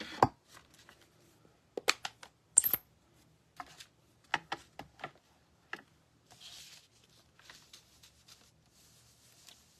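Handling sounds on a craft desk: a string of sharp clicks and taps as tools and card are picked up and set down, then a soft brushing hiss from an ink brush working white craft ink over paper.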